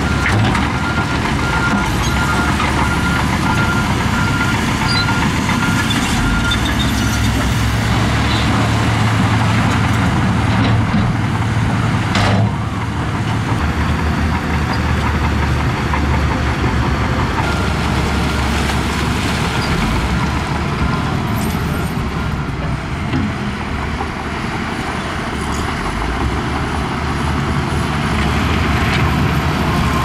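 Heavy diesel earthmoving machinery running under load, steady throughout. A reversing alarm beeps over the first several seconds and again faintly later on, and a single sharp sound comes about twelve seconds in.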